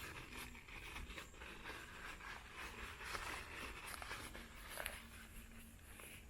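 Crinkly rustling and scraping of a Zpacks Triplex tent's Dyneema fabric being handled as its door panels are rolled up, with many small clicks through it.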